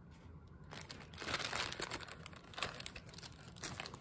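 Plastic bags crinkling as hands rummage through them, starting a little under a second in and going on in uneven bursts.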